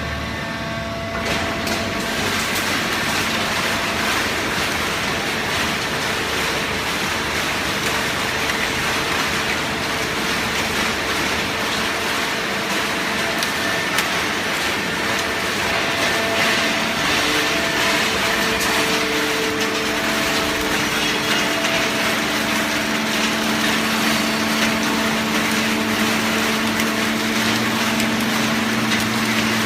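Hydraulic cardboard baling press running: a steady machine noise with a hum whose tones shift a few times as the press works, and a single brief tick midway.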